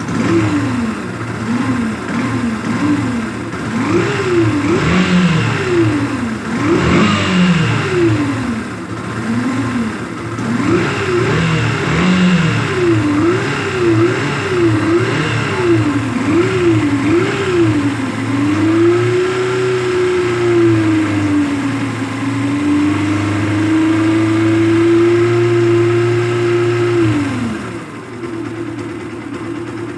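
Yamaha FZ-S FI V2's single-cylinder engine revved over and over in quick throttle blips, then held at a steady raised speed for several seconds before dropping back to idle near the end.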